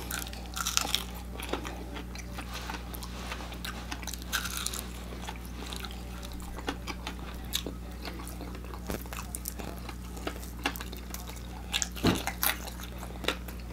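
Biting and chewing of an extra-crispy deep-fried chicken leg: irregular crunches of the fried crust, in clusters about a second in and again near the end.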